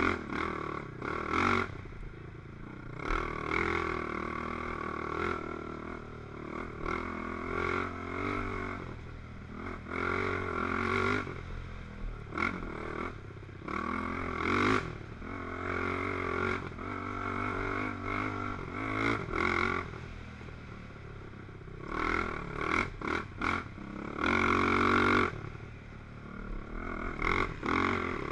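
Racing ATV engine revving up and down with the throttle, its pitch rising and falling again and again, with knocks and clatter from the machine over rough ground.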